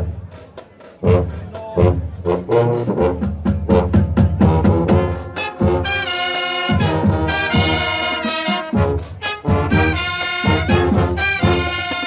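Marching band playing: sousaphones and low brass carry the tune over regular drum beats, and after a short break about a second in the trumpets and trombones come in full and bright about halfway through.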